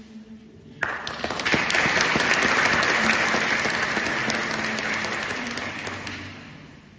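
Audience applauding, starting suddenly about a second in and dying away after about five seconds.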